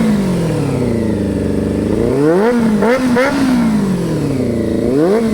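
1992 Honda CB400 Super Four's inline-four engine revved in short throttle blips with the bike standing still. The revs fall back from a blip at first, then jump in three quick blips about halfway through, sink slowly, and climb sharply again near the end.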